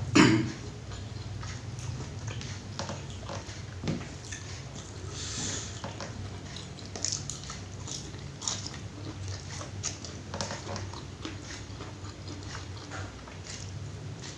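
Close-up eating sounds: a person chewing and biting into rice with pecel and tempe mendoan, with many small wet mouth clicks. A louder single knock comes right at the start.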